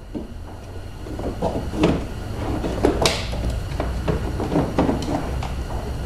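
Irregular knocking, scraping and clicking of the door lock actuator assembly being worked out through the car door's inner shell, with a sharp click about three seconds in.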